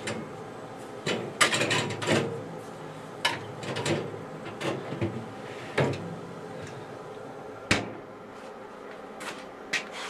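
Beverage cans being set into a wine refrigerator's wire bottle racks: irregular clinks, knocks and rattles of metal cans against the wire shelves, over a faint steady hum. The glass door is shut near the end with a sharp click.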